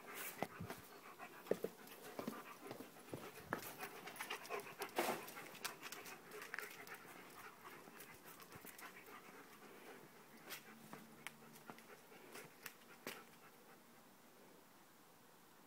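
German Shepherd dog panting, with scattered sharp clicks and taps; it all grows fainter about halfway through, leaving only a few clicks.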